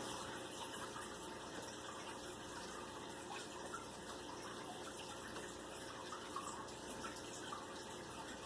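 A faint, steady hiss with no clear source.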